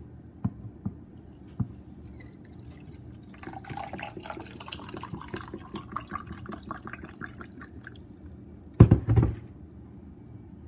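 Water poured from a plastic pitcher into a glass, splashing and trickling for about four seconds, after a few light knocks. Near the end comes a loud thump.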